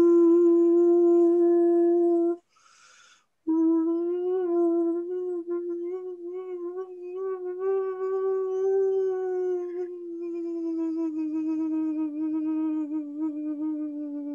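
A voice toning a long, held hummed note. It breaks off about two and a half seconds in for a breath, then goes into a second long note that wavers slightly and sinks in pitch as it ends.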